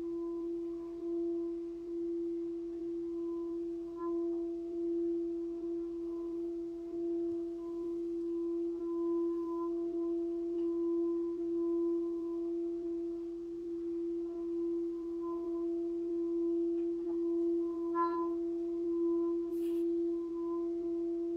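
Hammered brass singing bowl holding a little water, its rim rubbed with a wrapped wooden stick: one steady sung tone that swells and eases slowly. A couple of light clicks near the end.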